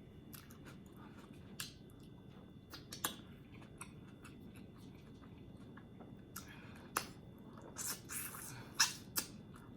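Close-up chewing and eating mouth sounds: scattered short wet clicks and smacks, sparse at first and coming more often in the last few seconds.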